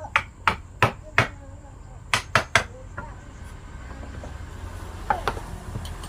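Hammer blows on wood: four sharp strikes in quick succession, about three a second, then three more about two seconds in, and two lighter taps near the end.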